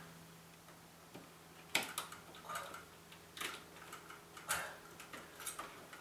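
Scattered small clicks and rustles of hands working a smoke detector's wires and a plastic wire nut, about seven short sounds from two seconds in, over a faint steady hum.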